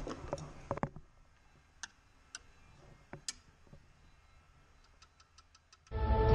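Clicks and light taps of a screwdriver working on the plastic headlight mounting of a car. First comes a short cluster, then a few sharp ticks well spaced apart, then a quick run of faint ticks. Music starts abruptly near the end.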